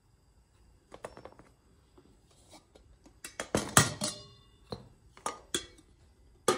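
Metal clanks and clatter of a metal kettle being handled. The loudest clatter comes about three and a half seconds in, followed by a few single knocks.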